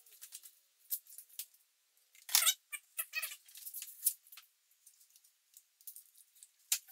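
Scattered sharp clicks and short rattling scrapes from the G37's stock intake air box and its fittings being worked loose by hand. A denser burst of rattling comes a little over two seconds in and again about three seconds in.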